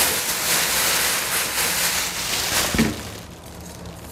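Thin plastic bag rustling and crinkling as it is pulled off a rice cooker's inner pan, with a short knock near the end of the rustling, after which it dies down.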